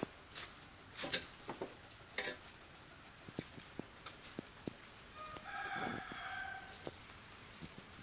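A rooster crowing once, fairly faint, about five seconds in, amid scattered light clicks and knocks.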